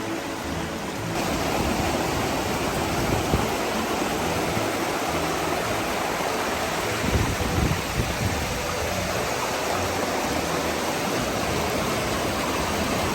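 Steady rush of running water from storm runoff flowing through a washed-out arroyo after a hurricane, getting a little louder about a second in.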